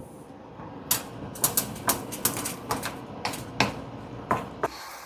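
Creamy mushroom sauce cooking down in a frying pan on raised heat, a low steady sizzle under a run of sharp, irregular clicks and taps.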